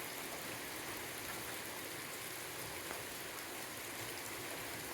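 Steady heavy rain falling and pattering on surfaces.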